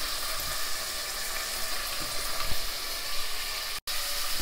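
Chopped onion and vegetables sizzling steadily in hot oil in a pot, at the sautéing stage before water is added. The sound breaks off for an instant near the end.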